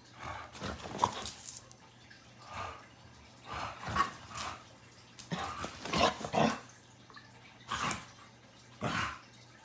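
A bulldog and a border collie play-fighting: short dog sounds and scuffling in separate bursts about a second apart.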